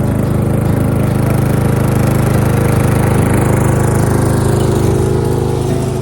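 Old riding lawn tractor's engine running steadily.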